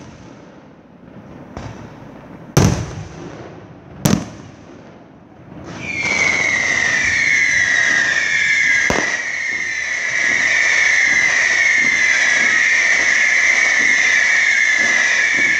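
Fireworks: a few sharp bangs of bursting shells in the first four seconds, then from about six seconds in a loud, continuous shrill whistling that wavers and slides slightly down in pitch, from a ground-fired barrage of whistling shots. Another single bang comes near nine seconds.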